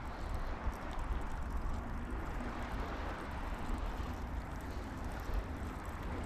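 Wind buffeting the microphone in a steady rumble, over the wash of sea water at the shore.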